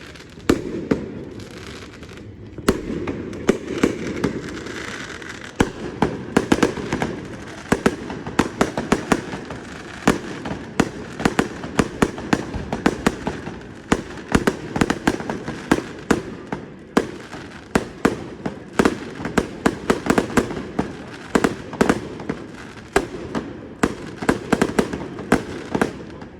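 Aerial fireworks display: a dense run of bangs and crackling reports, many shells bursting in quick succession, over a continuous rumble of echoing booms.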